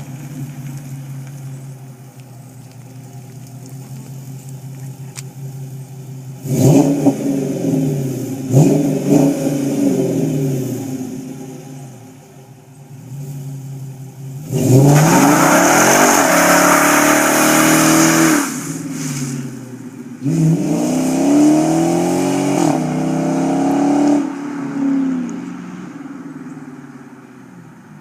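Dodge Challenger SRT8's Hemi V8 through a Flowmaster American Thunder cat-back exhaust: idling, then blipped twice, held at high revs for about four seconds midway, revved again a few times and settling back to idle.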